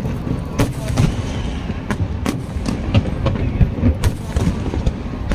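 Fireworks going off: a rapid, irregular string of sharp bangs and cracks over a low rumble.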